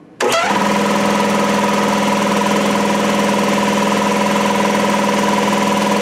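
Kobalt 80-gallon air compressor switched on at its newly replaced pressure switch: a click, then the electric motor and piston pump start abruptly and run steadily with an even hum, showing the new switch now lets the compressor kick on.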